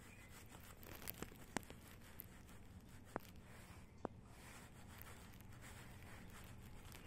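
Near silence: faint room hum with about five short clicks in the first four seconds, the sharpest about a second and a half in.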